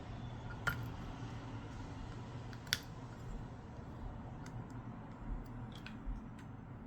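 Sharp clicks and light taps of small hand tools on a smartphone during a screen repair, two louder clicks in the first three seconds and a few fainter ticks later, over a steady low hum.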